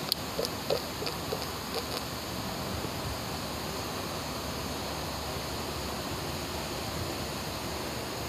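Nissan NS-3 CVT fluid pouring from a quart bottle into a funnel, the bottle glugging in short blips for the first couple of seconds, over a steady hiss.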